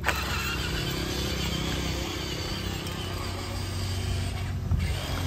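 Excavator running steadily with a low hum, with a sharp click at the start and a knock near the end.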